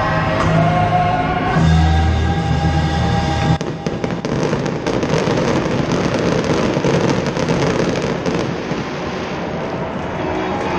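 Music with steady bass notes for the first three and a half seconds, then an abrupt cut to the sound of an aerial fireworks display: a dense, continuous crackle of many small pops and bangs.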